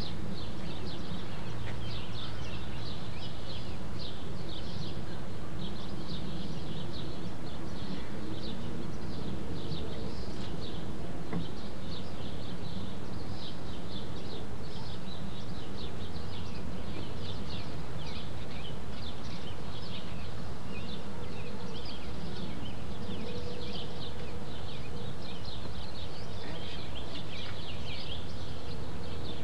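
Dense, irregular high-pitched chirping that keeps on throughout, over a steady low hum and hiss.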